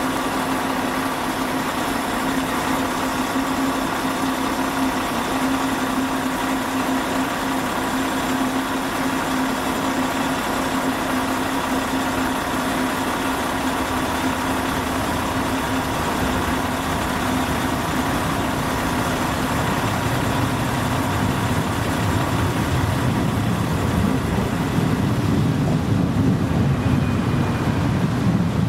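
A train's engine running steadily at idle, a constant hum. About two-thirds of the way in, a deeper rumble builds and grows a little louder as trains move in the yard.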